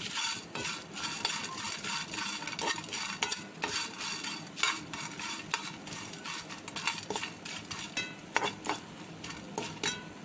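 Whole spices being stirred and scraped around a pan with a metal spoon while they roast: irregular clicking, scraping and clinking of spoon on pan, with a brief metallic ring near the end.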